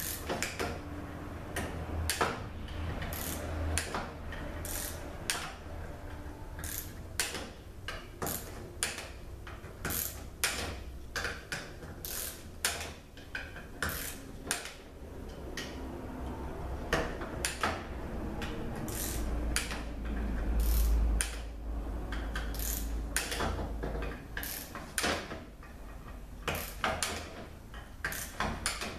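Hand ratchet clicking in short runs, the sound of transmission valve body bolts being run down and torqued, the wrench set at about 70 inch-pounds. A low rumble about two-thirds of the way through is the loudest moment.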